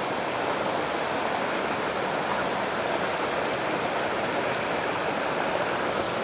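Rain-swollen stream rushing steadily.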